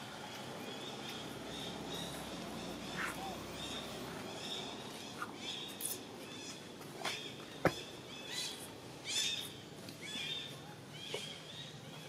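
Outdoor ambience with a steady high-pitched hum and scattered short, high animal chirps and squeaks, with one sharp click about seven and a half seconds in.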